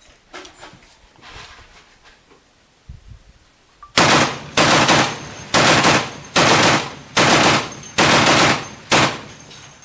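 A .50 cal M2 Browning heavy machine gun on a Sherman tank's turret firing seven short bursts of a few rounds each in quick succession, starting about four seconds in.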